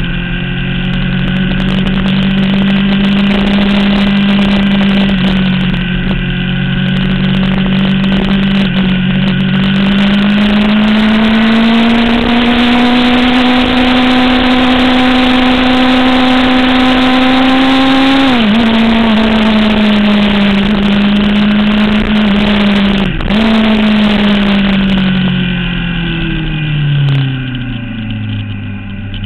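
Sport motorcycle engine heard from onboard at speed, with heavy wind rush. The engine note climbs slowly as the bike accelerates, drops sharply at a gear change a little past halfway, dips once more a few seconds later, then falls away as the bike slows near the end.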